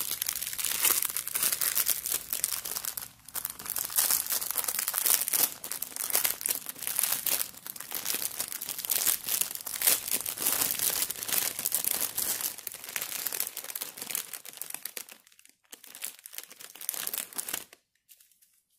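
Clear plastic wrapping around a bundle of small zip bags of diamond-painting drills being pulled open and handled, crinkling and crackling continuously, easing off into a few short rustles near the end.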